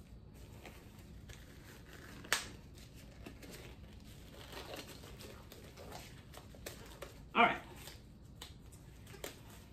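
Thin disposable gloves rustling and crinkling as they are worked onto the hands, with a sharp click about two seconds in and a short voice-like sound a little past seven seconds.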